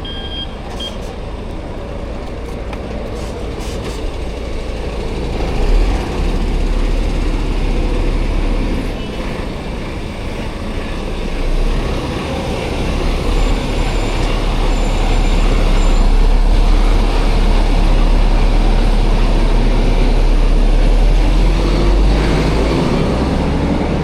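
Reversing beeps from a heavy vehicle stop about a second in, then the vehicle's diesel engine runs close by, its low hum growing louder and staying loud.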